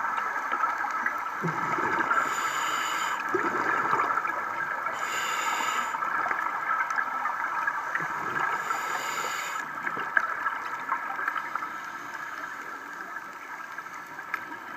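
Underwater sound through a camera housing: a scuba diver's regulator letting out bubbles on each exhale, in bursts of about a second roughly every three seconds, stopping about ten seconds in. Under them runs a steady hiss with a steady high tone.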